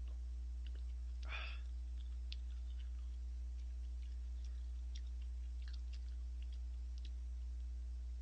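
Eating sounds from the last of a bowl of ramyeon being spooned and sipped from a raised ceramic bowl: a short slurp about a second in, then soft chewing with scattered small clicks. A steady low electrical hum runs underneath.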